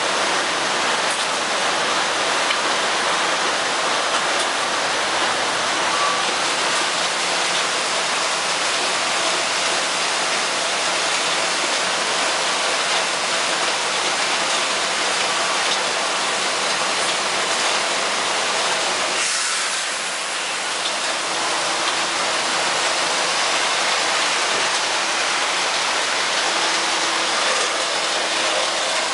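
Wood chips pouring steadily from an overhead loading chute into an open-top chip trailer: a continuous, even rushing hiss that eases briefly about two-thirds of the way through.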